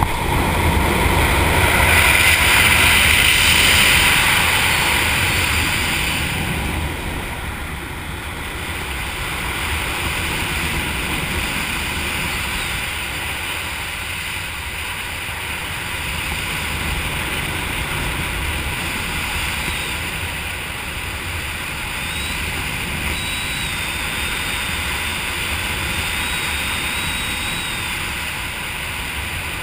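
Steady wind rush buffeting the microphone of a skydiver's camera under an open parachute, louder for the first several seconds, then even.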